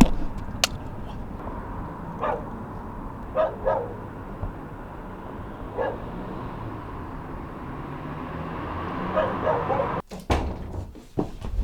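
A dog barking a few times with irregular gaps, over a steady background noise.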